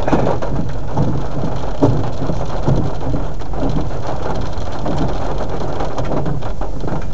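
Heavy rain falling on a moving car's roof and windshield, heard from inside the cabin over a steady low road and engine hum.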